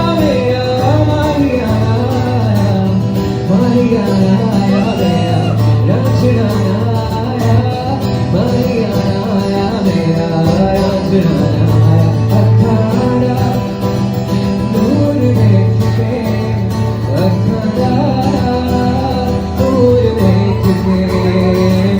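A song playing: a singing voice over guitar and a steady bass line.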